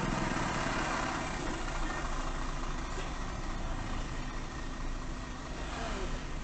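Steady engine idle of a vehicle stopped in traffic, under road noise from a car driving past close by at the start and a motorcycle passing near the end.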